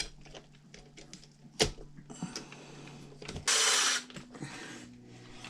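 Small metal parts and tools clicking and rattling as the front axle assembly of a Traxxas UDR RC truck is fitted back on, with a sharp knock about a second and a half in and a short harsh rasp about three and a half seconds in.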